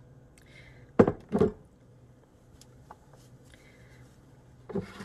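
Two sharp knocks of the emptied plastic blender jug about a second in, then a few faint clicks and the rustle of the cloth nut milk bag being gathered near the end.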